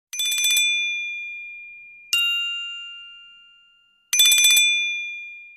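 Nokia Asha 300 ringtone made of bright bell rings: a quick trill of strikes, a single ring about two seconds in left to die away slowly, then another quick trill about four seconds in.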